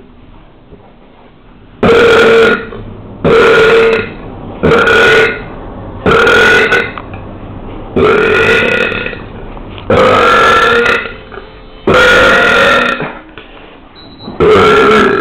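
A person burping loudly over and over: eight separate belches, each under a second long and held at a steady pitch, coming every one and a half to two seconds after a quiet first two seconds.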